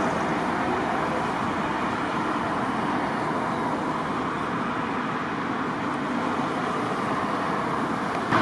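Steady road-traffic noise: a continuous, even hum of passing vehicles with no distinct events standing out.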